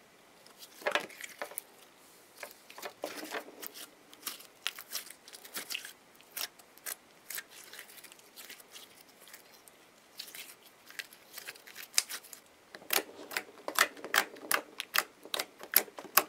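Glitter slime being stretched, squeezed and poked by hand: irregular sticky clicks and small pops. They come faster and louder in the last few seconds, as fingers press into the slime spread on the table.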